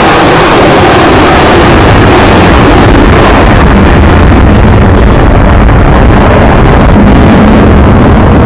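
USAF Thunderbirds F-16 fighter jets passing overhead: very loud jet engine noise whose hissing high end fades after about three seconds, leaving a deep rumble as the jets draw away.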